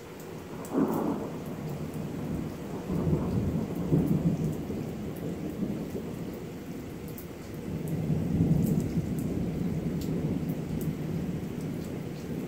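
Thunder rumbling in a severe thunderstorm over steady rain: it breaks in suddenly about a second in and rolls on for several seconds, swelling again near the middle and toward the end.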